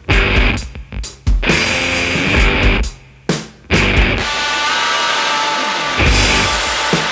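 Rock music with drums and guitar, breaking off briefly twice.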